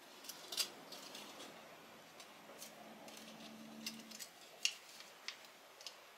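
Small metal parts (a short metal tube and nuts) clicking and tapping against each other as they are handled and fitted together: a scattering of light, sharp clicks at uneven intervals.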